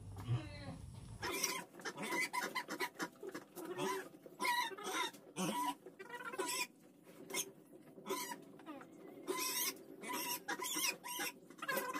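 Short, squeaky farm-animal calls repeating in quick succession, a few each second.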